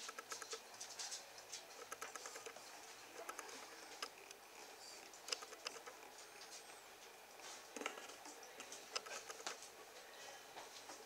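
Faint, irregular clicks and patter from three-and-a-half-week-old Saint Bernard puppies moving about on a towel and nursing.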